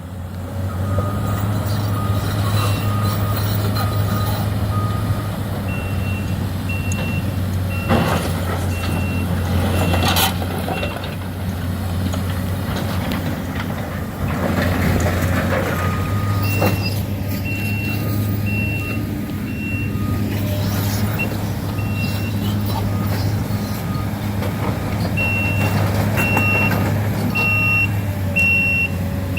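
Heavy diesel demolition equipment running with a steady low drone while backup alarms beep, about one beep a second, from two alarms at different pitches that start and stop by turns. A couple of sharp knocks stand out about eight and ten seconds in.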